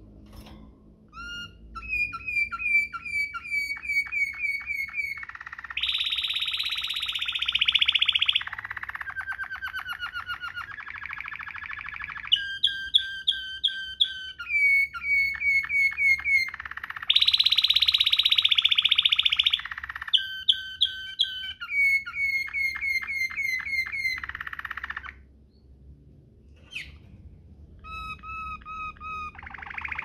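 Domestic canary singing in the rolling Waterslager style: runs of quick repeated notes alternating with dense, fast rolls, phrase after phrase. A pause of about two seconds comes near the end before it sings again.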